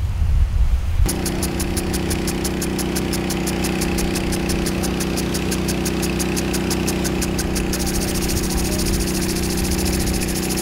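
A fire hose spraying water rushes briefly. Then an engine runs steadily under the rapid, even ticking of an impact lawn sprinkler, and the ticking turns faster about three-quarters of the way through.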